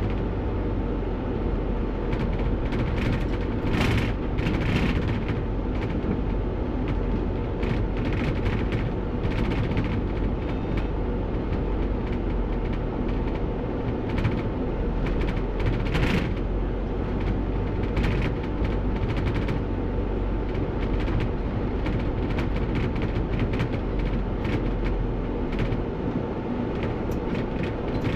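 Bus running on the road, heard from the driver's cab: a steady engine and road rumble with frequent irregular rattles and knocks.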